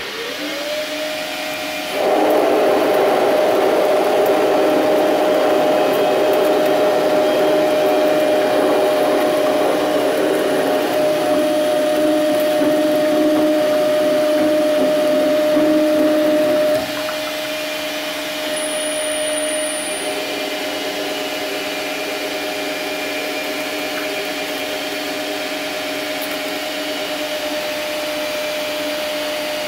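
A 10x22 benchtop metal lathe's spindle whines up to speed, then its carbide tool makes a dry, aggressive power-feed cut in W1 tool steel. The cutting noise rides over the steady whine from about two seconds in and stops about seventeen seconds in, leaving the lathe running free.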